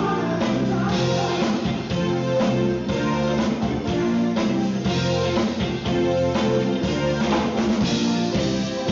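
Live rock band playing: drum kit keeping a steady beat under bass guitar, electric guitar and keyboards.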